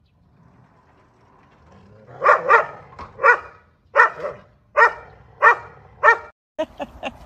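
Two dogs barking aggressively at each other: a run of sharp barks, about one or two every second, starting about two seconds in and breaking off near the end.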